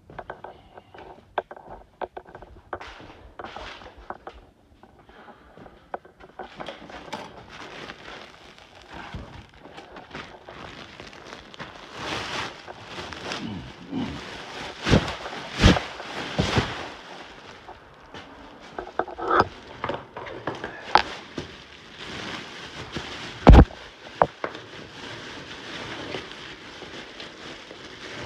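Trash and debris being handled: crackling, rustling and scraping, with scattered knocks and one sharp thud about 23 seconds in.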